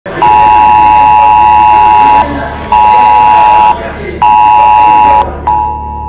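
Smartphone emergency-alert tone for a cell-broadcast "Emergency alert: Extreme" message, here a nationwide test: a loud, harsh two-pitch beep sounding for about two seconds, then twice more for about a second each with short gaps. Near the end the tone sounds again more softly.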